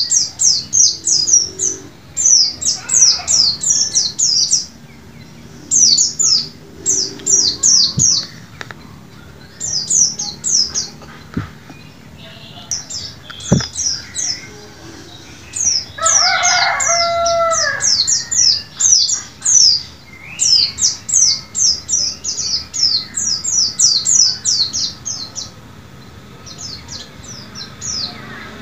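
A white-eye (pleci) sings its loud, rapid chattering song: quick runs of high, falling notes in bursts of a few seconds, separated by short pauses. About 16 seconds in, a lower call from another source cuts across the song.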